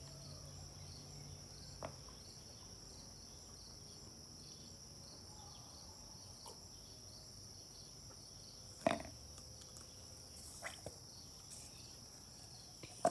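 Steady high-pitched insect chorus, like crickets, running throughout. A low hum stops about two seconds in, and a few short clicks and knocks come through, the loudest about nine seconds in.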